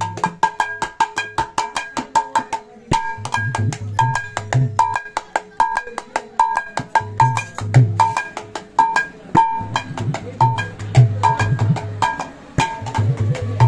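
A freshly retuned Bengali mridanga (khol) played with bare hands in a fast rhythm: ringing, pitched strokes on the small treble head run throughout, with deep strokes on the large bass head joining in stretches and dropping out for a few seconds at times.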